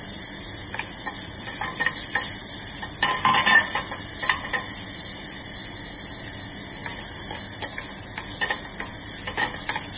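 Diced bacon sizzling as it fries in its own rendered fat in a stainless steel pan, with no oil added, browning on the bottom. A wooden spatula stirs and scrapes the pieces, adding scattered short clicks and scrapes over the steady sizzle.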